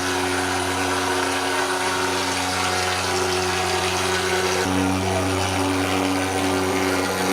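Motorized insecticide fogging machine running with a steady droning roar and hiss. It steps up slightly in pitch and loudness a little past halfway.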